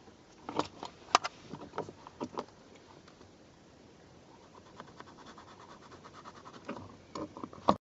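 Scattered clicks and light scratching of hands working on plastic interior trim, followed by a run of fast faint ticks and a sharper click just before the sound cuts off abruptly.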